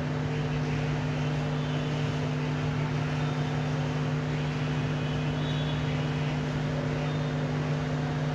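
Hot air rework station blowing steadily, a constant hum with a rush of air, as its nozzle heats a phone board's IC to reflow the solder balls underneath.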